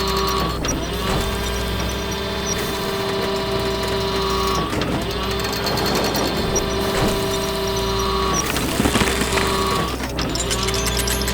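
A motorized machine running with a steady hum and a held whining tone, which breaks off and starts again several times.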